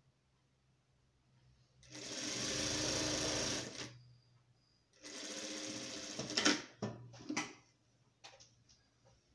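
Sun Special industrial straight-stitch sewing machine stitching fabric in two runs of about two seconds each, a low steady hum underneath. A few sharp clicks follow the second run.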